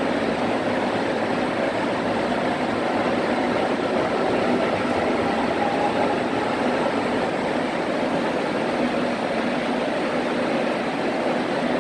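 ITX-Cheongchun electric multiple-unit train departing and running past the station platform: a steady rumble of wheels on rail with faint motor tones, swelling slightly midway as the cars go by.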